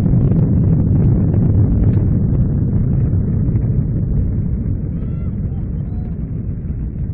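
Deep rumbling roar of a large high-power amateur rocket motor as the rocket climbs away, fading steadily as it gains height.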